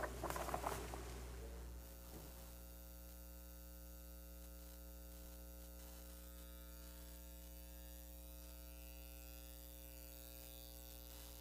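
Steady electrical mains hum with several steady tones, typical of a sound system with no one talking. A few soft clicks and rustles come in the first couple of seconds, then stop.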